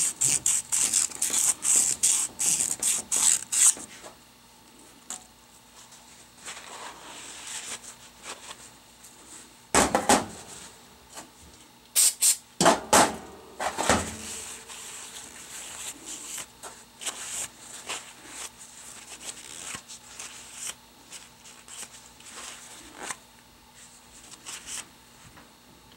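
Emery cloth rubbed by hand inside the aluminium bore of a Hydro-Gear hydraulic pump housing, where the shaft bearing sits: quick rasping strokes, about three or four a second, for the first few seconds. Then a few loud knocks of the metal housing on the metal bench, followed by fainter intermittent rubbing and handling.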